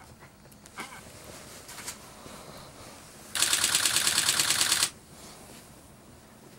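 Camera shutter firing in a rapid burst, about a dozen clicks a second for about a second and a half, starting a little over three seconds in and stopping abruptly.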